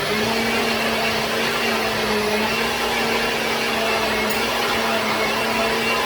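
Electric countertop blender running steadily, puréeing sliced plantain and water into a smooth mix. The motor holds a constant hum throughout.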